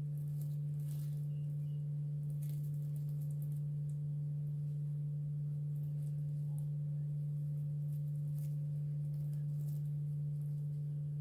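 Steady low hum, one unchanging tone, with a few faint ticks and rustles from a crochet hook working plastic bag strips.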